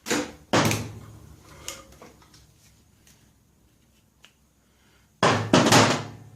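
Two short, loud bursts of metallic work noise, one at the start and another about five seconds in, from unbolting the starter off a Kohler single-cylinder engine.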